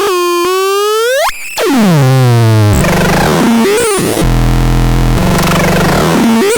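Electronic synthesizer: a pulsing tone sweeps sharply up about a second in, then glides down into a low, buzzy drone that warbles and shifts in pitch a few times.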